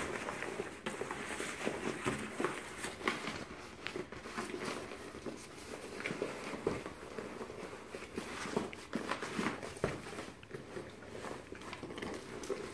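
Handling noise from a sewn vinyl-and-cork tote bag being pulled through its open bottom and turned right side out: irregular rustling, crinkling and soft taps of stiff material.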